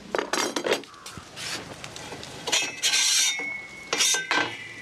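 Metal clinking and scraping as a coil of bent 6 mm steel rod is worked along and off a steel pipe roller, with irregular clinks and a short ringing scrape in the middle.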